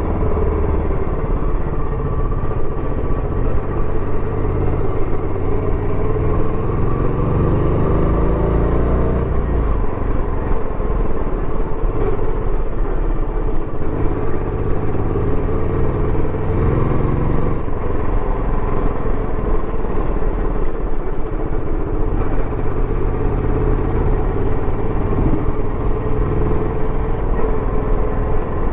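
Royal Enfield Bullet 350X's single-cylinder engine and stock exhaust running under way. The engine note rises as the bike accelerates about a quarter of the way in, drops back, then rises again a little past the middle.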